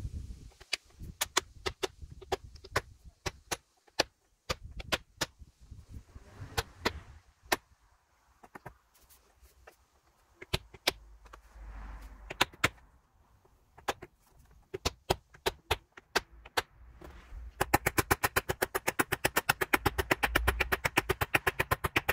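Hammer striking an axe head fitted on its wooden handle, seating the head while the axe is re-hung. Scattered single knocks at first, then a fast, even run of light taps, about eight a second, for the last few seconds.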